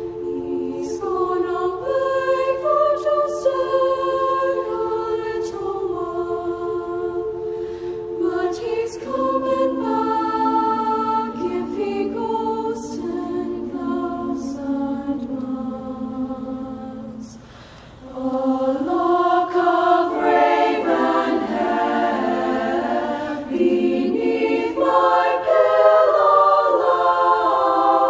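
High school women's choir singing in sustained harmony, with a brief break for breath about seventeen seconds in, then a fuller, louder passage.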